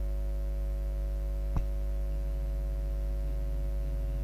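Steady electrical hum from the sound system, a low mains buzz with several steady tones over it, and a single click about one and a half seconds in.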